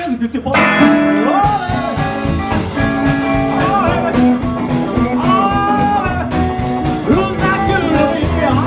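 A live rock and roll band playing: a man singing over a strummed acoustic guitar, electric guitars and an upright bass, with a steady beat.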